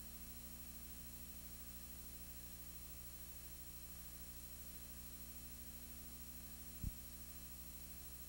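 Faint steady electrical hum with a light hiss from the blank end of a videotape, with one brief low thump about seven seconds in.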